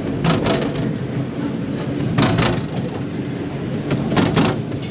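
Miniature railway train running along the track, heard from an open passenger carriage: a steady low rumble of wheels on rail, broken three times by short sharp clacks about two seconds apart.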